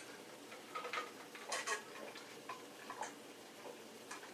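Faint, irregular clicks of a person swallowing while drinking from a bottle, about half a dozen over a few seconds.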